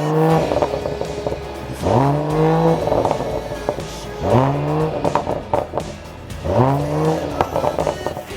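Mercedes-AMG GLE53's turbocharged inline-six revved in four quick blips about two seconds apart, each pitch rising fast, holding briefly and dropping. Each blip is followed by popping and crackling on the overrun through the straight-piped exhaust, with its centre muffler removed.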